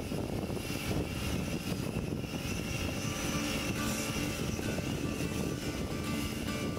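High-pressure washer running, its water jet spraying against a steel ship's hull: a steady hissing rush over the machine's drone, with a faint wavering whine on top.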